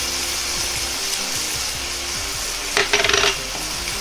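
Raw chicken skin sizzling in a little hot oil in a non-stick frying pan, a steady hiss. About three seconds in, wooden chopsticks clatter and scrape against the pan for about half a second, the loudest sound.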